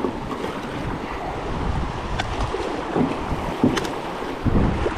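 River water sloshing and splashing close by, with wind rumbling on the microphone. Heavier splashes come about three seconds in, again shortly after, and near the end.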